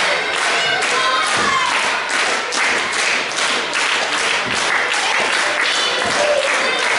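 Crowd clapping, with voices calling out among the claps.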